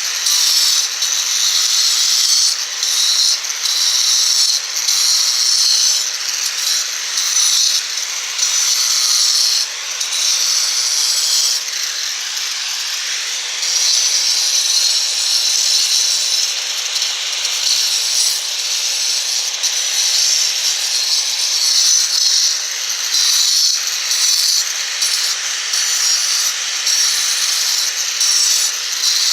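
Angle grinder grinding into stone: a loud, harsh, continuous grinding hiss, strongest in the high range, that dips briefly every second or two as the wheel comes off the stone and bites again.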